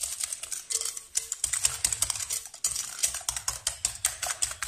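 Green plastic balloon whisk beating eggs and sugar in a glass bowl: rapid, rhythmic clicking and tapping of the wires against the glass. The mixture is being beaten until the sugar dissolves.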